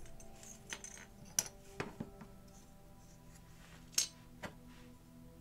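Light clicks and clinks of small diecast-model parts, a metal body casting and plastic window and interior pieces, being handled and set down on a cutting mat. About six in all, the loudest about four seconds in, over soft background music.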